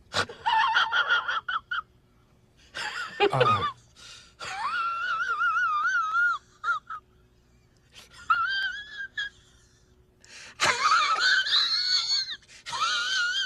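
Meme sound effect: a run of high, warbling squeals in about five bursts with short gaps, the pitch wavering up and down, one call sliding steeply down about three seconds in.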